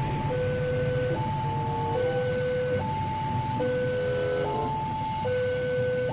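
Railway level-crossing alarm sounding a two-tone electronic warning, switching between a higher and a lower tone a little under every second, over the low rumble of a freight train rolling past.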